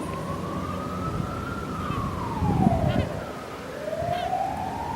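Emergency vehicle siren wailing: one tone sliding slowly up, dipping about three seconds in, then climbing again near the end. A low rumble under it swells briefly just before the dip.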